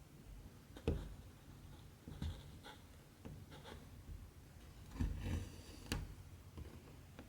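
Cross-stitching on 14-count fabric: a needle pierces the cloth and cotton thread is drawn through, giving a string of soft ticks and short scratchy rasps. The loudest are a tick about a second in and a longer rasp about five seconds in.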